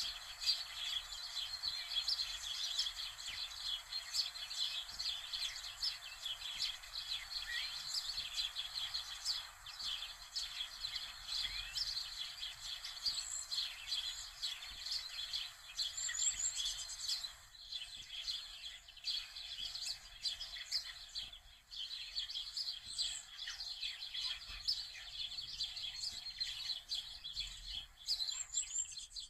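Many small birds chirping and twittering in a dense, continuous chorus of short, high-pitched calls.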